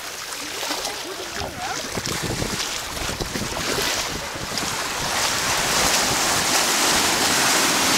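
Small waves washing in over shallow sand, with wind buffeting the microphone; the hiss of the breaking surf grows louder in the second half.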